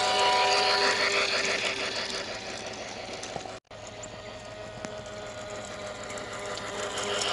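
Toy train's electric motor whirring steadily as it runs along plastic track close by, fading over the first few seconds. The sound cuts out abruptly about halfway through, then a quieter steady whir carries on.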